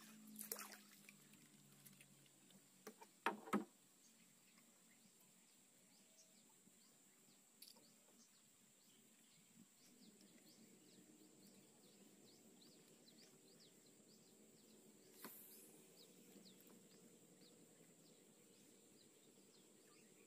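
Near silence: faint outdoor ambience of many short, high-pitched chirps and a steady high whine. A few sharp clicks break it, the loudest a quick pair about three and a half seconds in, with another near the start and one at about fifteen seconds.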